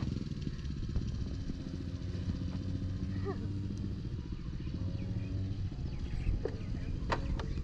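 A small motor running with a steady low drone, with two sharp knocks about seven seconds in.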